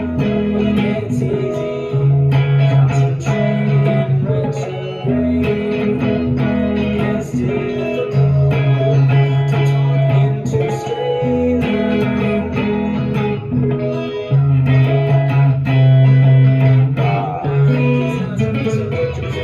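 Instrumental rock music led by guitar, with bass notes and a steady beat.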